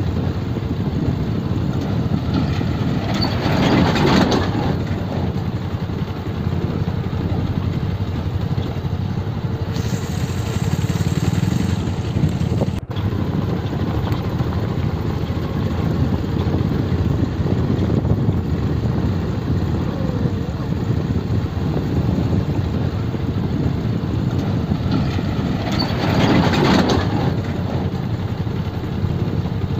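Motorcycle engine running at low speed while riding over a rough dirt road, with steady wind and road noise. The sound swells briefly about four seconds in and again near the end.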